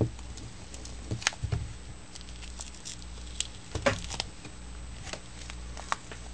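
Scattered sharp clicks, taps and faint crinkles of fingers handling an iPhone and peeling a clear adhesive protective film off its back, over a low steady hum.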